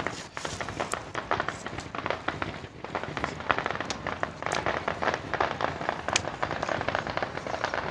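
Fireworks crackling: a dense, continuous stream of small sharp cracks and pops, with a few louder cracks among them.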